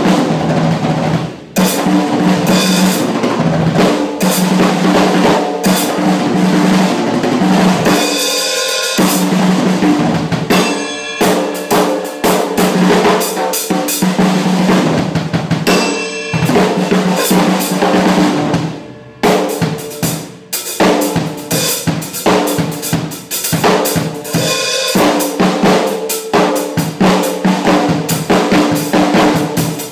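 SJC acoustic drum kit played in a loose improvised groove of kick, snare and cymbals, with fast rolls about eight and eleven seconds in and a couple of brief breaks in the beat.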